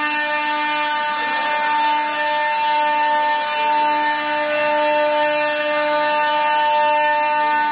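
Chencan stone CNC router's spindle running at a steady whining pitch while its bit carves a relief into a stone slab, with a grinding hiss under the tone.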